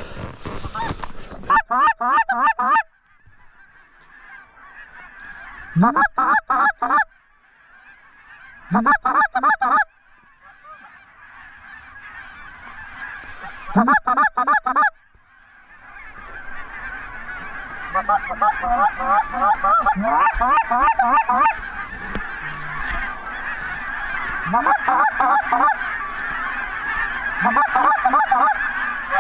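Goose calling in short bursts of rapid honks and clucks, four times in the first fifteen seconds with quiet between. From about halfway, a flock of geese honking fills the background, and more bursts of calling sound over it.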